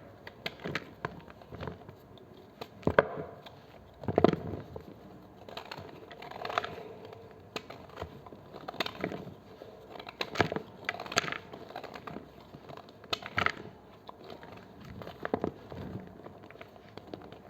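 A knife cutting through blocks of gym chalk: a dozen or so dry, crunchy strokes, irregularly spaced about a second apart.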